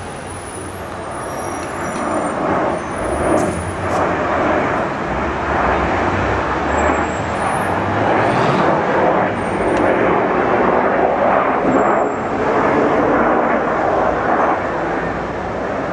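Formation of military jets passing low overhead: steady jet noise that swells about two seconds in and stays loud.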